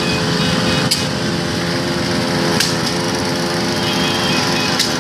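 A pack of small motorcycles running together at low speed, many engines droning at once on overlapping pitches, with a few sharp clicks.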